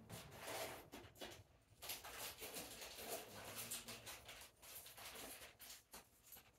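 Faint, irregular scratching and rustling.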